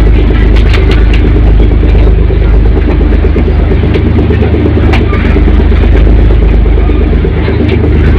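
A passenger ferry's engines running with a loud, steady low drone, heard from its deck.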